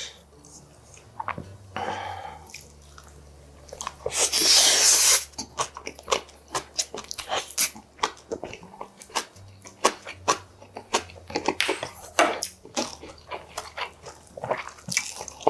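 Close-miked chewing of a mouthful of rice and cabbage kimchi: wet smacking and crunching clicks, many a second. Near four seconds in comes a loud, noisy rush of about a second.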